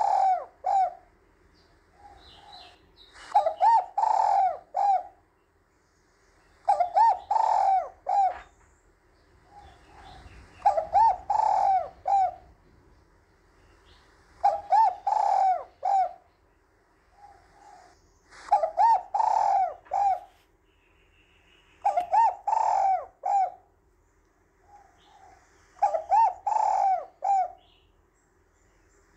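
Spotted dove cooing: a loud phrase of several notes repeated about every three and a half to four seconds, with softer notes in the gaps.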